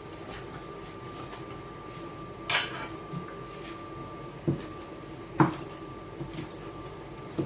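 Kitchenware being handled: a few separate knocks and clinks, the loudest about five and a half seconds in, over a faint steady hum.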